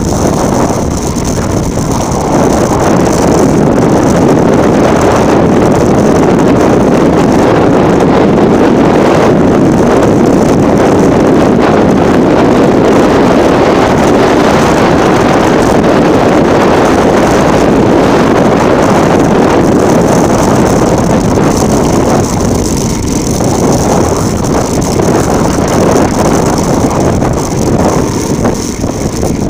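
Loud, steady wind rush over the microphone, mixed with tyres rolling over loose ground during a fast bicycle descent. It eases slightly near the end.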